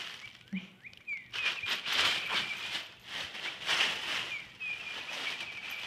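A dog attacking a cat toy: irregular scuffling and rustling as she bites and shakes it, with a few faint high squeaky tones.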